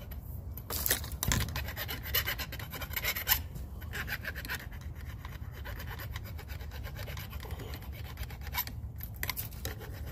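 Hand file rasping on the cut end of a pipe in short, irregular strokes, taking off burrs and rough edges.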